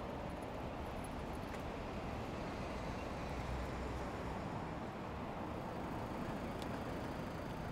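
Steady city traffic and road noise heard from a moving bicycle: a low, even rumble with no single event standing out.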